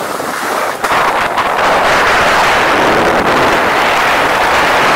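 Steady rushing hiss of skis gliding fast over snow-covered lake ice while kite-pulled, mixed with wind on the microphone, louder from about a second in.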